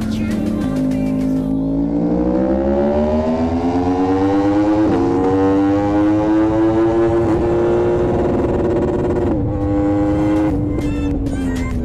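A sport motorcycle's four-cylinder engine under hard acceleration. The pitch rises, dips briefly at a gear change about five seconds in, climbs again, holds, then falls away as the throttle closes near the end. Background music can be heard at the start and the end.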